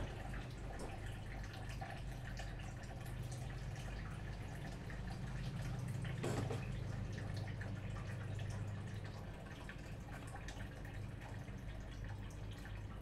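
Ceramic pot of water heating on a gas stove: faint crackling and ticking, like water drops on the hot pot, over a steady low hum, a little louder about six seconds in.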